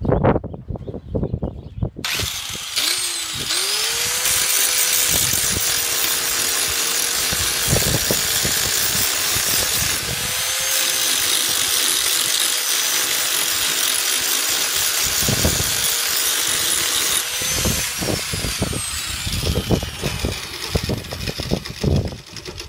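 Angle grinder starting about two seconds in and spinning up, then grinding the weld on a thin steel tube for about fifteen seconds before it is switched off and winds down. Sharp knocks come before it starts and after it stops.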